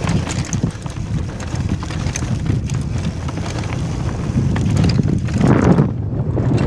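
Mountain bike descending a rocky trail at speed: wind rushing over the helmet-mounted microphone, with tyres over rock and the bike rattling in quick knocks and clicks. It gets louder a little after five seconds in.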